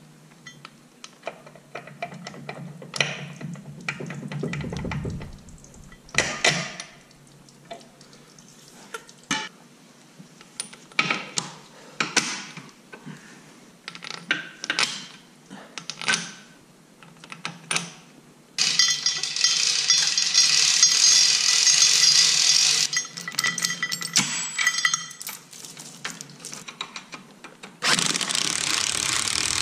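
Metal tools and parts clinking and knocking against each other, then an impact wrench running down bolts for about four seconds, and again for about two seconds near the end.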